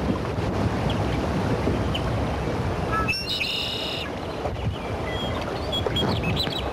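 Small birds chirping over the steady rush of river water, with a longer warbling bird call about three seconds in.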